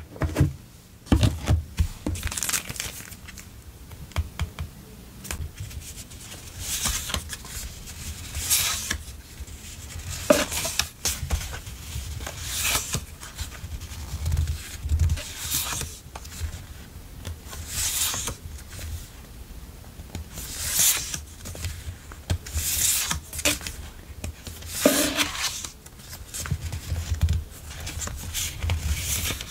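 Hands leafing through and sliding apart a stack of printed memo-pad paper sheets, the paper rustling in short swishes every second or two, with a few light taps.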